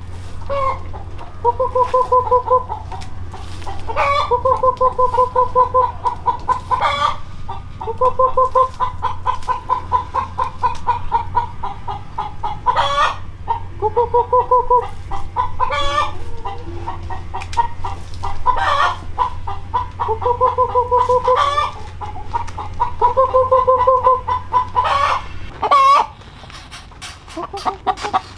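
Chickens clucking: a series of rapid pulsed calls, each a second or two long, with sharper higher notes in between, over a faint steady low hum.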